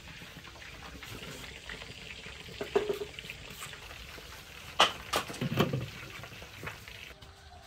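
Water hissing and bubbling in a large steel wok set up as a steamer, with a few sharp knocks and clatters as a woven bamboo steamer basket and a conical metal lid are set on it, the loudest just before five seconds in.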